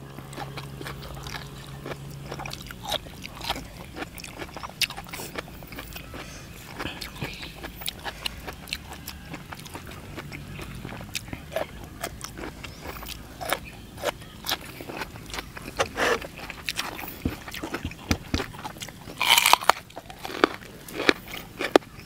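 Chewing and biting into crunchy raw vegetables, chiefly raw yardlong beans, giving many short, crisp crunches. The crunches are loudest near the end.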